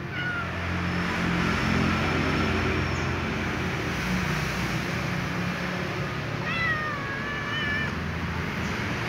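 Little ginger cat meowing for dry food: a short meow right at the start and a longer, wavering meow about six and a half seconds in. A steady low hum runs underneath.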